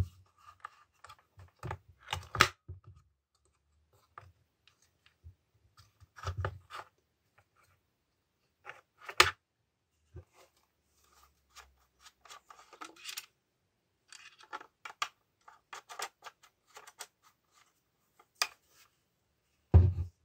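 Handling noise from a Makita UC4041A electric chainsaw's plastic housing as it is turned over on a wooden table: scattered clicks, scrapes and light knocks, with a few louder knocks, the loudest just before the end.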